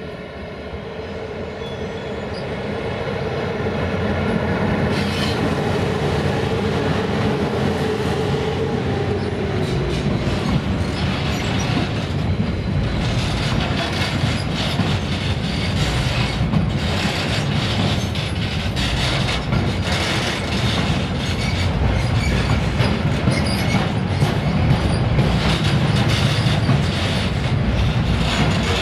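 Electric locomotive hauling a freight train past close by, humming with several steady tones that die away within the first ten seconds as it goes by. A long rake of covered sliding-wall freight wagons follows, rolling past with a steady rumble and wheels clattering over the rail joints.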